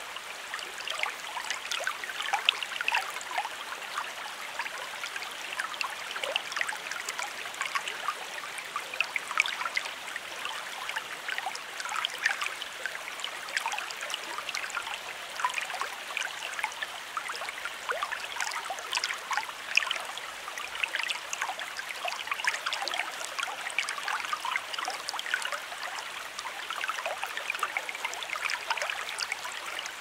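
A shallow stream of running water babbling steadily, with many small splashes and trickles.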